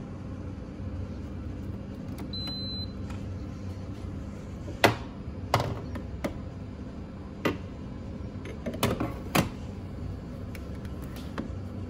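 A short, high electronic beep over a steady low hum, followed a couple of seconds later by half a dozen sharp knocks and clacks, irregularly spaced, in a small room.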